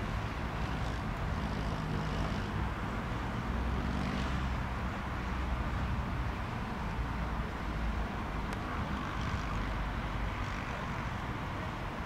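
Airbus A319 airliner's jet engines running at low power, a steady distant rumble.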